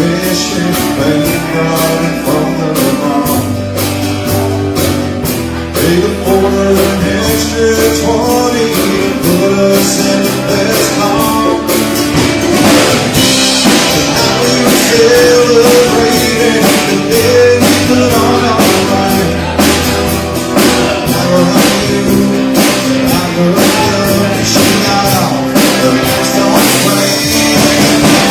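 Live band playing a country-rock song with guitar over a steady drum beat.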